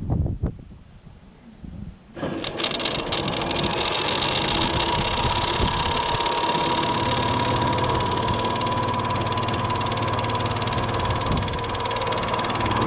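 A brief knock or two, then about two seconds in an old washing machine's drum motor starts up and runs steadily, with a whine that rises slightly as the drum spins up with a brick loaded inside.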